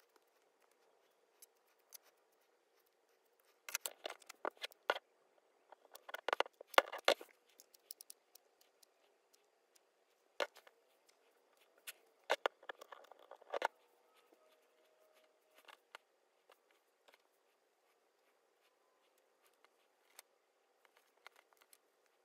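Scissors snipping through a fuzzy sock in a few short runs of sharp clicks, with soft fabric rustling as the sock is handled between the cuts.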